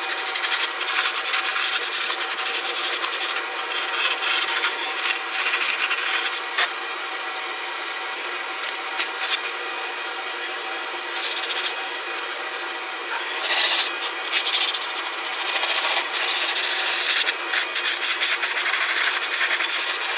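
Sandpaper rubbed by hand over the mating flange of a differential third member in quick, irregular scrubbing strokes, cleaning the sealing face before RTV goes on.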